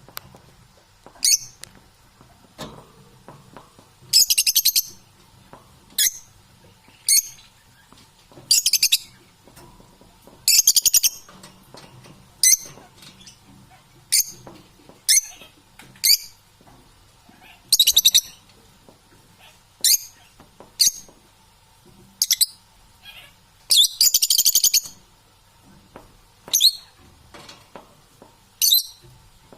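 Parrot calling: a series of short, high-pitched chirps every second or two, broken by a few longer, harsh squawks of about a second.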